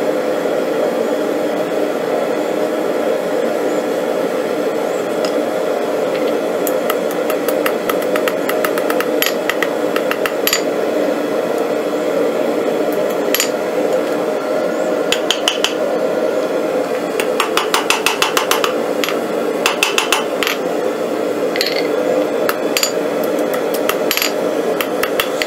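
Hammer blows on steel at the anvil, first scattered and then in quick ringing clusters in the middle stretch, as the fork tines are bent over. Underneath is the steady roar of a gas forge.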